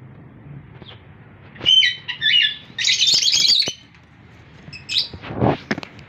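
Fischer's lovebirds calling: two shrill calls a little under two seconds in, then about a second of rapid, loud chattering, and another sharp call about five seconds in.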